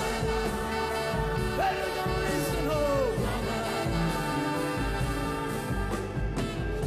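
Live pop band playing a song: electric guitars, drums and brass over a steady bass, with a voice sliding through a few sung notes in the first half.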